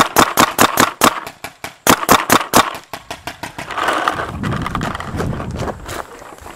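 Paintball marker firing in rapid strings of sharp shots, about six a second, stopping about three seconds in. Then a rough scuffing and rustling of movement as the player drops toward the grass.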